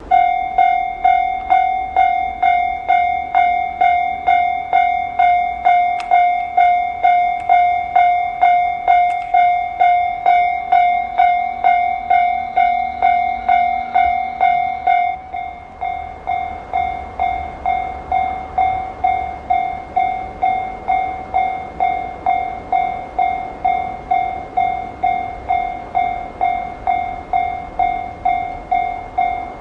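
Japanese railway level-crossing alarm ringing its repeated 'kan-kan' tone, about two strokes a second. About halfway through the strokes turn softer and duller.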